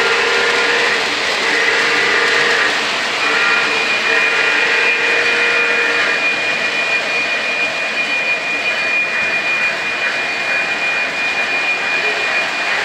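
O gauge model freight trains running on three-rail track: a steady rumble and whine of wheels and motors, with a held high tone over it from a few seconds in.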